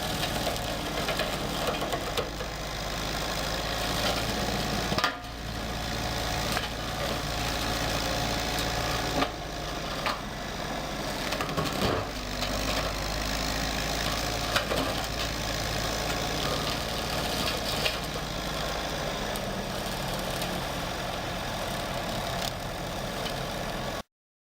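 Heavy brush-cutting machine running steadily while cutting through lodgepole pine and deadfall, with sharp cracks and snaps of wood now and then. The sound cuts off suddenly near the end.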